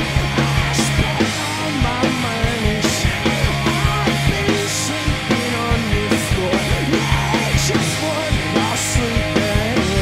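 Rock band playing live: drums with cymbal crashes, electric bass and electric guitar. The full band comes in loud right at the start and keeps a steady driving beat.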